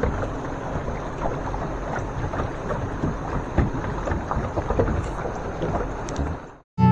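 Water noise: a steady wash of splashing and crackling with a low rumble underneath, fading out near the end.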